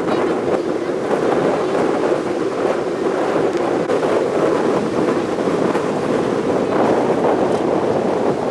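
Strong gusting wind and heavy surf of 2–4 m waves breaking: a steady, loud rushing, with wind buffeting the microphone.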